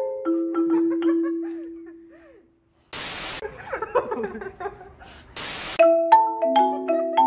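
Marimba played in two parts with yarn mallets: a phrase ends on a long low note that rings and fades out over about two seconds. Then come two short bursts of static hiss a couple of seconds apart, with faint scuffs and gliding sounds between them, and the marimba comes back in with a quick, even run of notes near the end.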